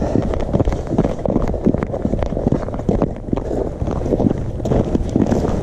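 Hurried footsteps crunching over snow-covered ice, a quick irregular series of crunches, with wind rumbling on the microphone.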